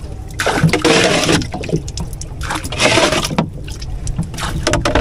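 Water sloshing and splashing in the bottom of a small boat's hull, in several uneven washes.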